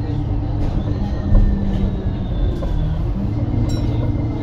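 Alexander Dennis Enviro 300 single-deck bus heard from on board: its diesel engine runs with a steady low hum, with a single thump about a second in and a few faint high squeals.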